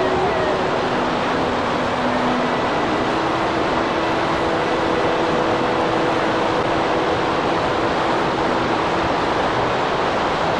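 Steady, unbroken rush of fast-flowing water, like a mountain stream or river in spate.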